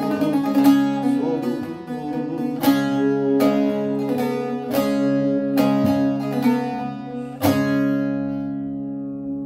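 Bağlama (long-necked Turkish saz) played solo, a run of plucked notes closing the song. The final strike, near the end, is left to ring out and fade.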